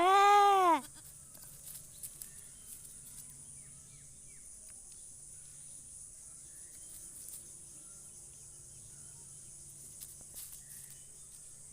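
A goat bleats once, loudly and briefly, its pitch rising then falling. After it comes a steady high-pitched drone of insects such as crickets, with a few faint short chirps.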